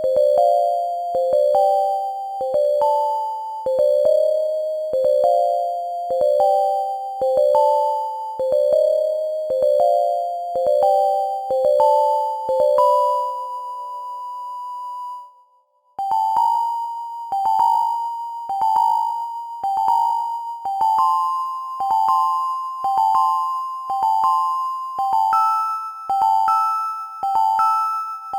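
Synthesized keyboard melody of short, decaying notes in a repeating rising pattern; about halfway it holds one note that fades to a moment of silence, then resumes higher with notes alternating back and forth.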